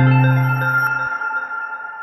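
End-screen music fading out: ringing notes over a held low bass note, which cuts off about a second in.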